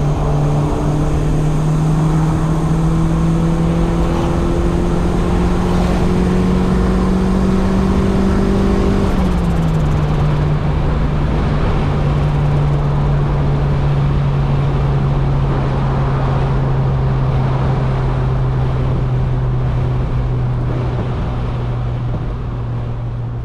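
Turbocharged Honda D16Y8 1.6-litre four-cylinder engine in a Civic running steadily on the road. Its note climbs slowly, drops about nine seconds in, then holds steady, over road noise.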